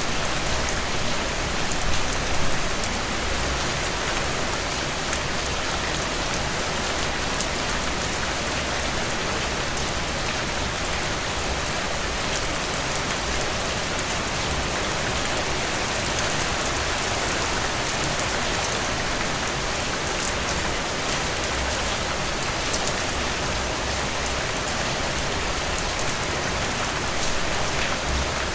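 Steady rainfall: a dense, even hiss of rain with fine drop patter on surfaces, no thunder.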